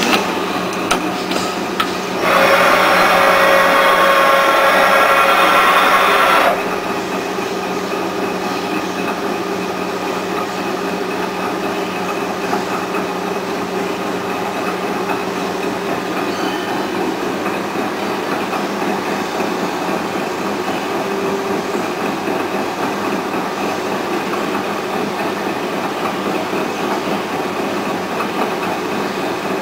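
Colchester CNC4000 CNC lathe running: spindle and chuck turning with a steady mechanical running noise and a few held tones, while the carriage and turret move. A few clicks come at the start. A loud, steady burst of noise starts abruptly about two seconds in and stops abruptly about four seconds later.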